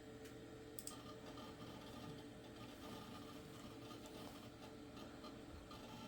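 Near silence: faint steady room tone with a low hum, and one faint click a little under a second in.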